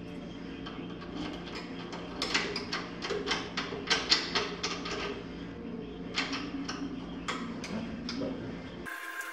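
A storefront door's paddle handle and mortise lock worked by hand: a quick run of metal clicks and clacks for about three seconds, then a few single clicks, over a steady low hum.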